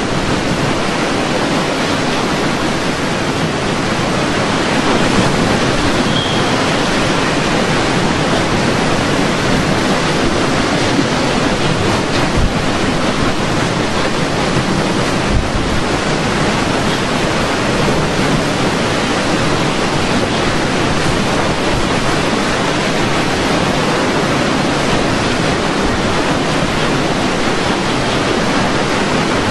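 Loud, steady rushing noise of storm wind and water, unbroken throughout.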